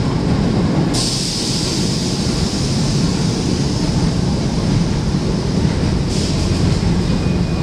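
Subway train of early-1900s cars rolling into the station and slowing to a stop: a steady low rumble of wheels on rail, with a hiss coming in about a second in and again near the end.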